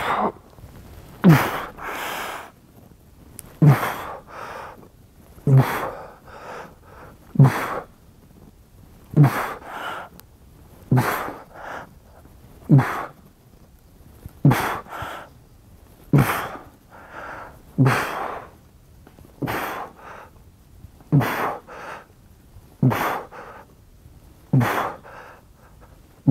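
A man's forceful breathing under load: a sharp exhale with a short falling grunt on each rep of a seated dumbbell shoulder press, about fourteen in a steady rhythm, roughly one every two seconds. This is the first warm-up set, with 25 kg dumbbells.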